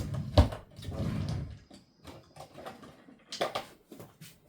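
Handling noise: a sharp knock about half a second in, a brief rustle, then scattered small clicks and another short rustle near the end.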